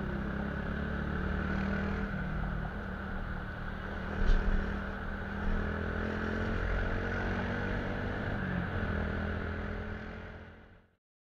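Motorcycle engine running steadily in traffic, with wind and road noise. A sharp thump comes about four seconds in, a smaller one a second later, and the sound fades out near the end.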